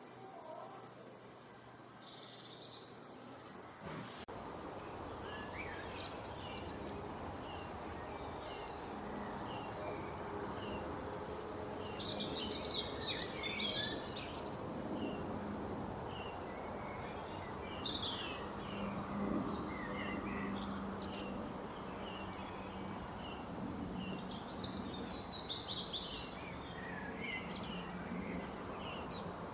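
Several wild birds calling and singing over a steady background hiss: runs of short repeated chirps, with a louder burst of song about twelve seconds in. The background noise steps up suddenly about four seconds in, and a faint low hum runs underneath.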